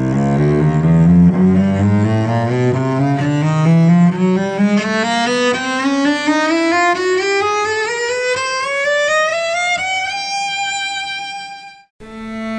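Bowed cello playing a long ascending scale in small steps, climbing from its low register to a high note that is held for about two seconds before cutting off near the end.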